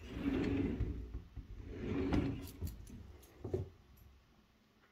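Pocket door being pulled out of its wall pocket, rolling on its track in two sliding pushes over the first two and a half seconds, then a light knock about three and a half seconds in.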